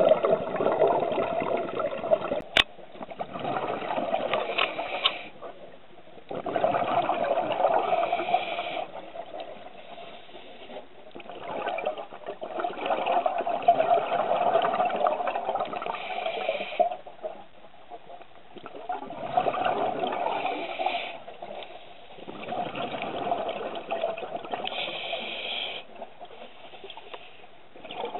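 A scuba diver's exhaled bubbles rushing from the regulator underwater, in a burst of bubbling every five or six seconds with quieter breaks between breaths.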